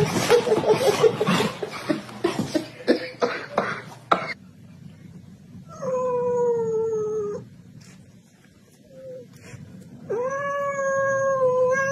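After about four seconds of noisy scuffling, a calico cat gives two long, drawn-out meows a few seconds apart, the first falling slightly in pitch, the second held steady.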